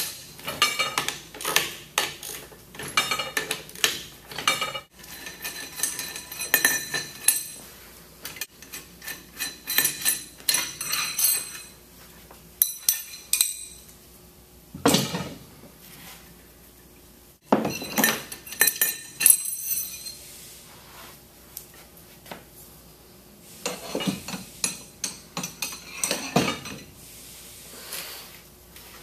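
Stainless-steel tie bolts being loosened with a wrench and pulled from a chemical injection pump's motor housing, then set down: metal clinking and ringing in clusters of rapid sharp clicks, with quieter gaps between.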